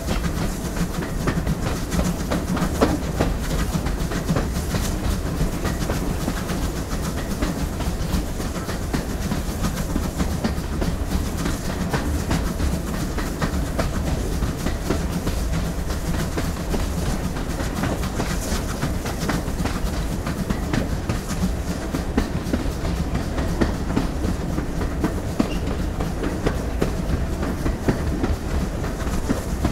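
GWR Collett Goods 0-6-0 steam locomotive running along the line, heard from the side of its boiler: a steady rumble with frequent irregular clicks and knocks of the wheels on the track.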